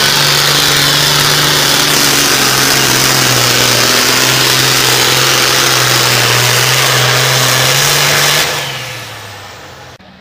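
Super farm class pulling tractor's turbocharged diesel engine running flat out down the track, loud and steady, with a strong hiss over its drone. About eight and a half seconds in it winds down and fades quickly.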